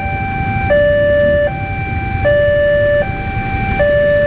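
Railway level-crossing warning alarm sounding an electronic two-tone hi-lo signal, switching between a higher and a lower tone about every three-quarters of a second: the crossing is closed for an approaching train.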